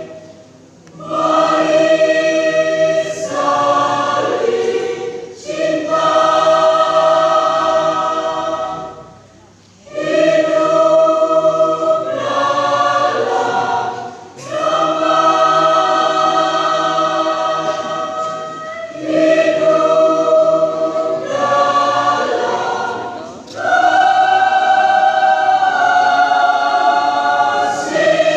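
Church youth choir singing a hymn in held, sustained chords, phrase by phrase, with short breaks between phrases.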